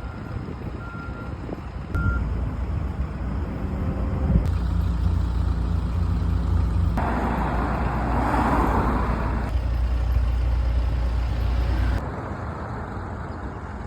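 BMW 340i's turbocharged inline-six running, heard as a series of short clips that change abruptly every few seconds. A few short parking-sensor-like beeps come near the start, and a louder rushing stretch follows in the middle.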